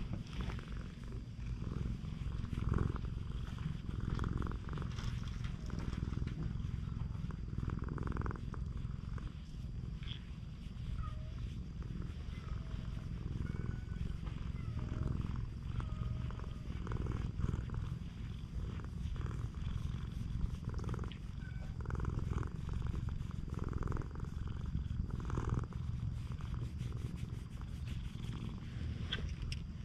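Domestic cat purring steadily, close to the microphone, while being scratched under the chin: a sign of a content cat.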